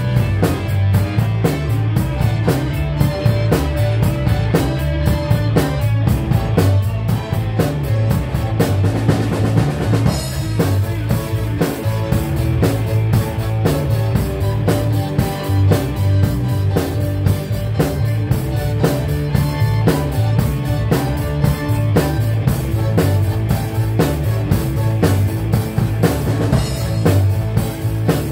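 A rock band playing an instrumental passage without vocals: the drum kit keeps a steady beat on bass drum and snare under bass and guitar. The pattern changes about ten seconds in.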